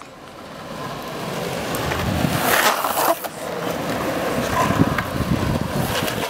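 Longboard wheels rolling on pavement, a steady grinding rumble with hissing scrapes. It builds up over the first couple of seconds.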